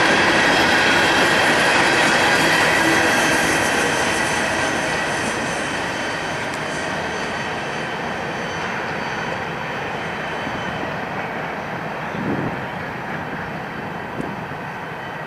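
Coal hopper cars rolling past on steel rails, with a steady rumble of wheels and a thin, high wheel squeal, fading away from about four seconds in as the end of the train moves off. A brief low thump about twelve seconds in.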